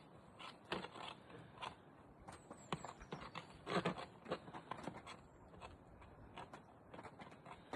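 Faint, irregular scrapes and knocks, a few of them a little louder around a third and halfway through.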